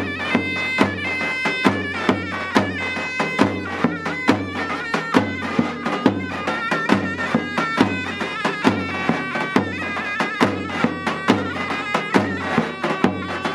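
Davul and zurna playing a Turkish folk dance tune: a shrill reed melody of held, stepping notes over a steady davul beat of about two to three strokes a second.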